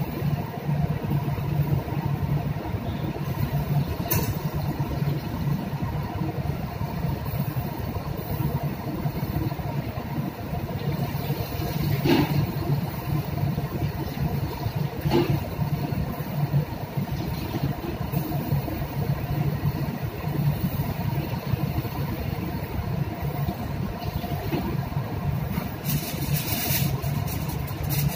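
Steady low machinery hum filling a ship's galley, with a few sharp clinks of metal tongs against the griddle. Near the end, aluminium foil crinkles close up.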